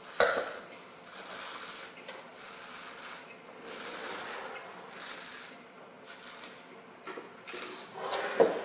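A person drawing air through a mouthful of red wine in about five raspy slurps, roughly a second apart, then smacking lips and tongue in several sharp clicks near the end.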